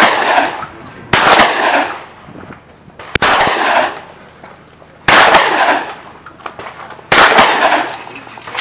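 Shotgun firing slugs: five loud shots about two seconds apart, each followed by a long echo.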